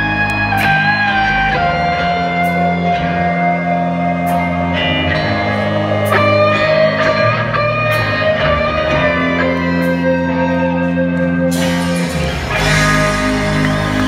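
Live rock band playing, with electric guitar holding long sustained notes over bass guitar and occasional cymbal hits, loud and heard from within the audience. About twelve and a half seconds in, crowd cheering and whoops rise over the music.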